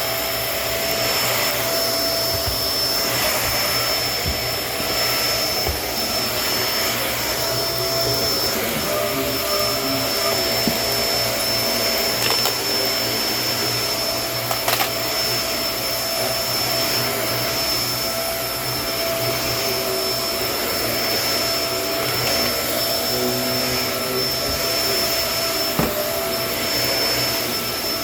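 Kenmore vacuum cleaner running steadily while vacuuming, a constant motor hum with a steady high whine, and a couple of brief clicks.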